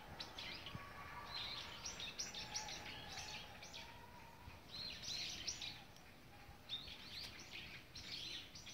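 Small birds chirping: quick clusters of short, high notes, several times over, against faint outdoor background noise.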